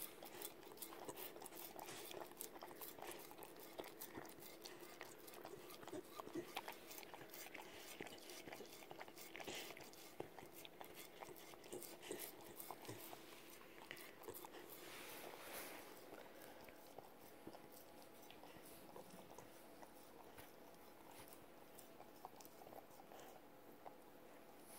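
Corgi licking crumbs off a plate: faint wet licking and small irregular clicks of tongue and mouth on the plate, growing sparser in the second half.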